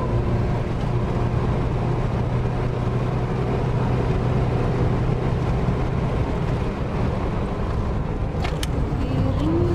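Car engine and road noise heard from inside the cabin while lapping a race track: a steady low drone under a dense rush of tyre and wind noise, with a few sharp clicks near the end.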